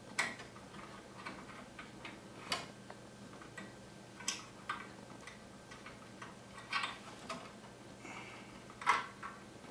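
Scattered light clicks and taps, about seven or eight at uneven intervals, from TV parts and cable connectors being handled and pushed back into place.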